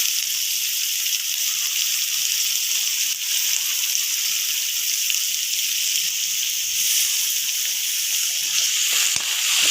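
Chopped vegetables and garlic sizzling steadily in hot oil in a pan as they sauté, with a few faint knocks near the end.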